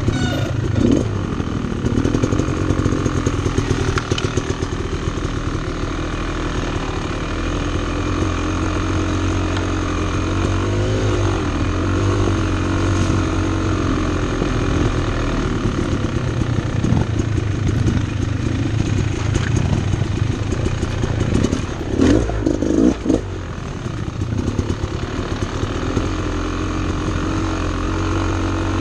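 Two-stroke dirt bike engine running at low, gently varying revs on a rough trail, with the clatter of the bike over the ground and a few louder knocks late on.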